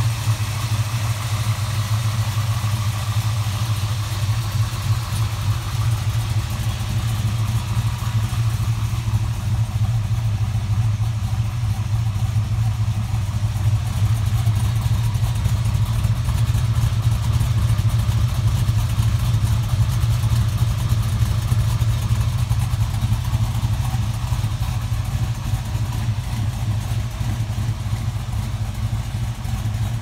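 A 383 Chev stroker small-block V8 in a 1974 HQ Holden idling steadily, a little louder for a while in the middle.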